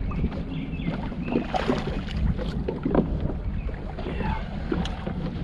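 Wind buffeting the microphone and small waves lapping against the boat's hull, with scattered short knocks and splashes as a hooked walleye is brought up alongside.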